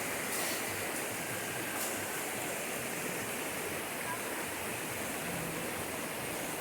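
Steady rushing outdoor noise, with two faint clicks in the first two seconds.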